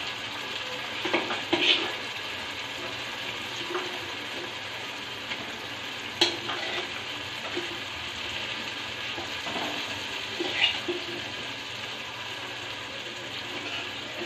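Masala frying in oil in a kadai, sizzling steadily as boiled goat intestines with a little of their cooking water are spooned in. A few sharp clicks of a steel ladle against the pan.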